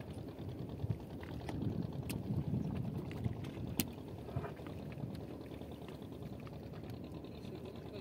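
Water sloshing and dripping as a wet gill net is hauled by hand over the side of a wooden fishing boat, with a couple of sharp clicks about two and four seconds in.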